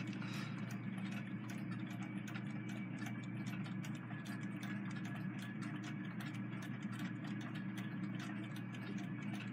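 Several nickel-plated Westclox wind-up alarm clocks ticking at once, their ticks overlapping into many fast, uneven clicks, over a steady low hum.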